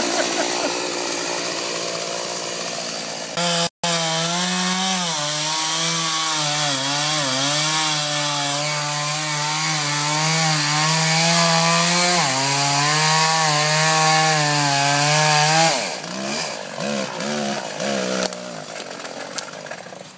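Gas chainsaw cutting into a tree trunk, the engine held at high revs under load, its pitch sagging and recovering as the chain bites. About sixteen seconds in it comes off the cut and drops to a lower, uneven running.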